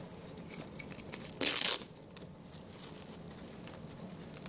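Fabric busy board being handled by a capuchin monkey: small clicks and rustles of its buckles, snaps and straps. About a second and a half in, a fastener is pulled open with one short, loud rip.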